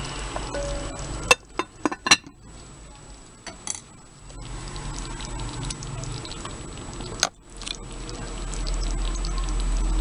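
Glass lid clinking against the rim of a glass cooking pot, a few sharp clinks one to two seconds in and another near seven seconds, over the soft plopping of thick rice porridge (arroz caldo) simmering.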